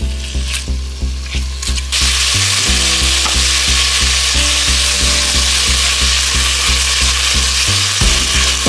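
Pork pieces sizzling in a Staub cast-iron pot as they are sautéed and stirred with a silicone spatula; the sizzle swells to a loud, steady hiss about two seconds in. Background music with a steady beat plays underneath.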